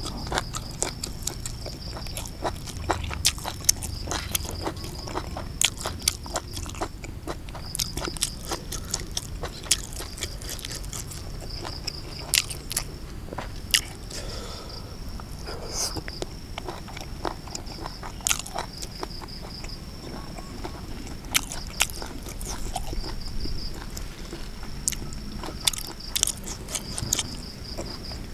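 Close-miked eating: a person chewing and biting mouthfuls of Isan raw beef with fresh chillies and herbs, with many sharp crunches and wet clicks. Insects trill steadily behind it, breaking off now and then.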